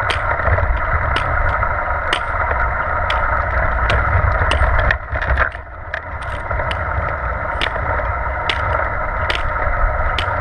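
Manual wheelchair rolling on asphalt, a steady rumble carried through the chair's frame, with the tips of hiking poles clicking sharply on the pavement about once or twice a second as they push. The rumble eases briefly about five seconds in.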